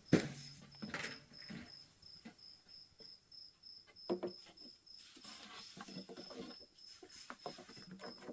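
Cricket chirping steadily, a high chirp about three times a second, over scattered knocks and rustles. A sharp thump just at the start is the loudest sound.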